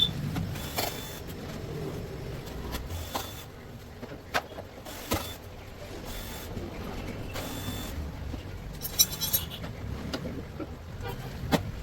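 Scattered sharp clicks and knocks of tools and plastic body panels as a Honda Activa 6G scooter is dismantled, over a steady low background rumble.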